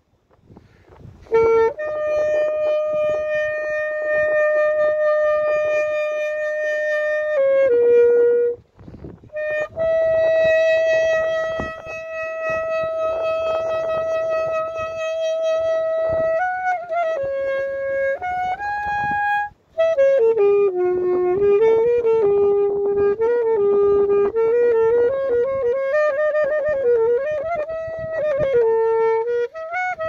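Solo saxophone playing slow, long held notes, the longest lasting six or seven seconds. From about twenty seconds in it moves into a quicker run of shorter notes that waver up and down.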